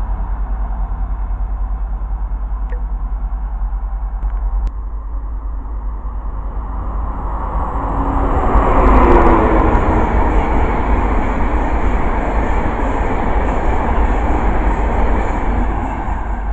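An InterCity 225 express, an electric locomotive hauling a long rake of coaches, passing at speed: a rushing wheel-on-rail noise builds from about six seconds in, peaks a few seconds later and holds loud as the coaches go by, easing off near the end, over a steady low rumble.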